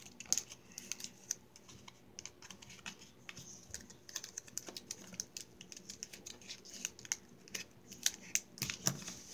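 Hands taping down the folded corners of a paper heart with sticky tape and handling the paper: many light, irregular clicks, taps and crinkles.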